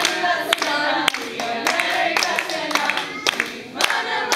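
A group of people clapping their hands in a steady rhythm, about two claps a second, with voices singing and calling along.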